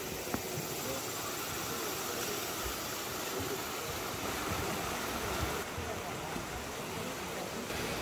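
Mountain stream rushing steadily over granite rocks, with faint voices in the background.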